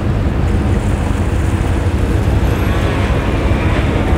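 Steady low drone of boat engines with a constant hum, mixed with wind rumbling on the microphone.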